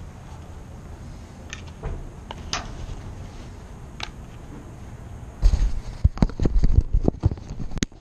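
Metal tool clicking and tapping at the bottom-rail lock of a Herculite glass door, a few separate clicks at first. Then, from about halfway through, a quick run of loud knocks and thumps.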